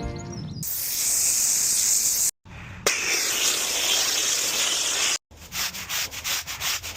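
Pressure washer spray hissing against patio paving, heard as three short edited clips split by abrupt cuts. In the last clip the spray comes as a quick run of repeated strokes.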